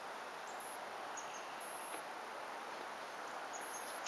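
Outdoor woodland ambience: a steady hiss with short, high insect chirps at irregular intervals. A sharp click comes at the very end as a water-filled plastic soda bottle is set onto the launcher's tube.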